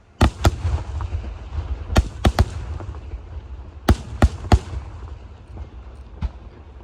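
Aerial firework shells bursting: sharp bangs in quick groups of two or three, about nine in all, with a low rumbling echo between them.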